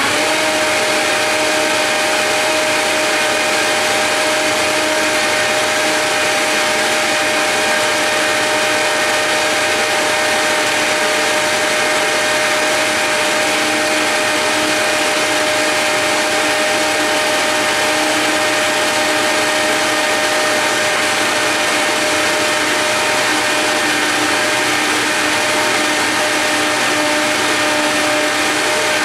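High-powered countertop blender running at a steady full speed with a constant motor whine, churning a thick green smoothie of kale, fruit and water.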